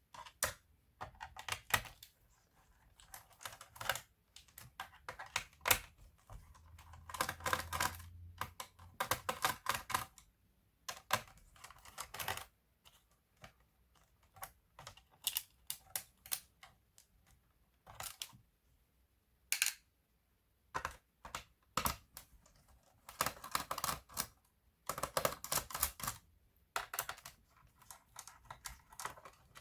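Irregular clicks, taps and rattles of hard plastic and small parts as a laptop is handled and taken apart by hand, coming in quick clusters with short pauses between.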